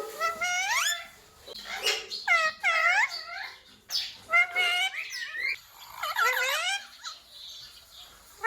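Ringneck parrot making a run of about six short, high-pitched calls and talking-like phrases, each swooping up or dipping and rising in pitch, with short pauses between them.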